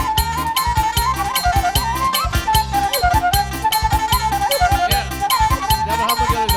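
Traditional Batak folk music: a wind instrument plays an ornamented melody over steady, rhythmic drumming and a repeating bass line.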